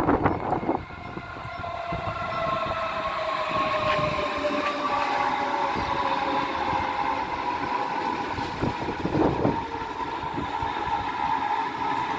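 DB class 423 S-Bahn electric multiple unit pulling into the platform, its traction motors whining in a tone that falls slowly in pitch as it slows, over wheel and rail rumble. About five seconds in a second steady whine sets in.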